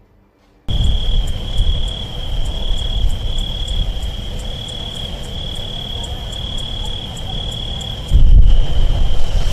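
A continuous deep rumble from Mount Etna's erupting lava fountain, stepping up louder near the end. Over it, crickets chirp in a steady pulsing trill. Both start abruptly under a second in.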